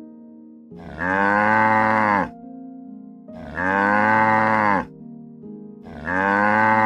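Cow mooing: three long moos of the same shape, each about a second and a half, evenly spaced about two and a half seconds apart, with soft background music between them.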